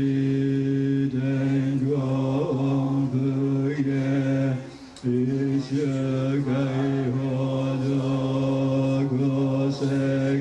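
A low chant held on one steady pitch, with a short break for breath about halfway through.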